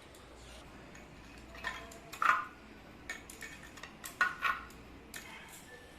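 Metal pots and utensils being handled, clinking and clattering several times. The clinks are loudest about two seconds in and again about four seconds in.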